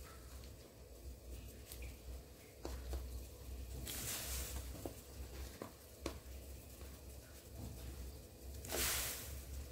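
Kaffir lime leaves and then a handful of shallots dropped by hand into a wok of water: a short rustling splash about four seconds in and a louder one near the end, with a few light clicks between and a low steady hum underneath.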